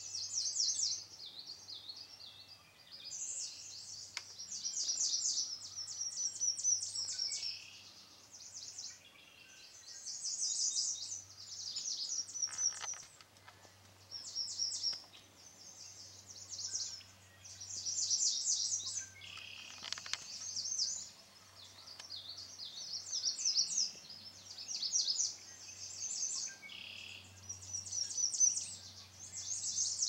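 A small songbird singing: a short, high-pitched phrase of rapid notes, repeated every two to three seconds.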